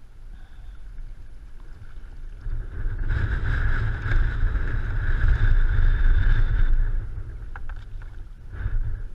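Wind buffeting the microphone with a low rumble, loudest from about three to seven seconds in, then a few light clicks near the end.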